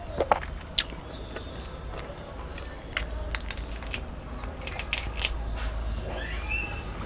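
Fried prawn shell crackling and snapping as it is pulled apart by hand: a scatter of sharp clicks, thickest in the middle of the stretch.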